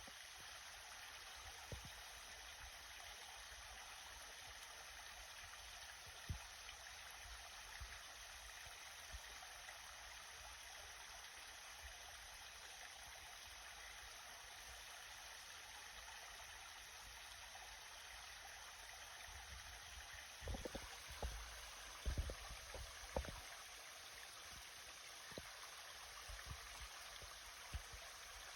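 Stream water running, a faint, steady rushing. A cluster of short low thumps comes about two-thirds of the way through.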